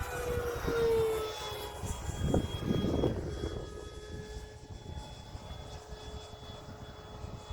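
Freewing Avanti S 80mm electric ducted-fan RC jet flying past: a fan whine that drops slightly in pitch in the first second, swells again around two to three seconds in, then settles to a steady whine. Gusty wind buffets the microphone underneath.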